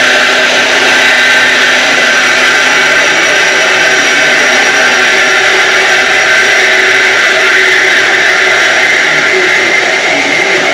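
Horizontal metal-cutting band saw running through steel tubing: a loud, steady grinding whine with a few ringing tones, one of which rises slightly near the end.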